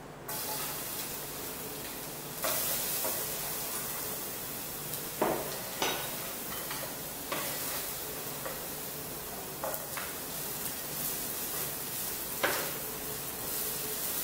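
Minced garlic sizzling in hot oil in a nonstick frying pan. The sizzle gets louder about two seconds in, and a wooden spatula stirs it with several knocks and scrapes against the pan.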